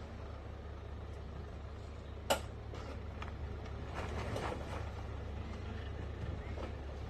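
An SUV's engine idling with a steady low rumble. A sharp knock sounds a little over two seconds in, and a few fainter knocks follow around four to five seconds.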